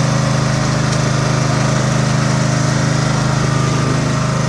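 Small fishing boat's engine running steadily at an even speed, a constant low hum with a fast rhythm.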